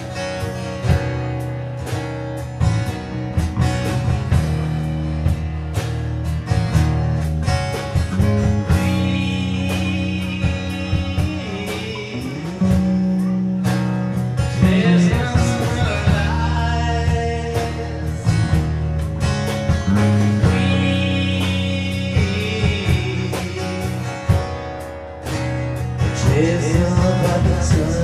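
Live band playing a rock/blues song, with strummed acoustic guitars and an electric guitar over a steady rhythm. A wavering high melody line comes in and out several times.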